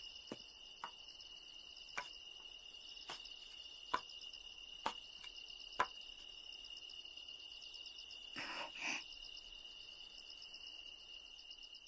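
Faint chorus of crickets chirping steadily, with a few soft, scattered clicks in the first half and a brief soft double puff of sound a little past the middle.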